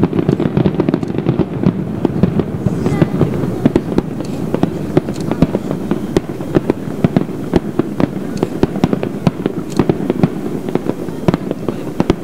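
Aerial fireworks bursting in quick succession, a dense run of sharp bangs several a second over a continuous low rumble.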